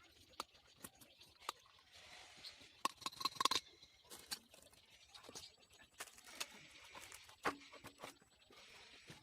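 Scattered sharp clicks and light clinks of small hard objects being handled, with a quick cluster of clinks about three seconds in and another sharp click past the middle.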